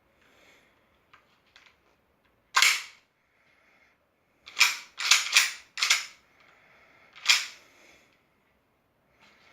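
Sharp metallic clacks from a Glock 17 pistol's slide and parts being worked by hand: a couple of faint clicks, one loud clack, then four in quick succession, then one more.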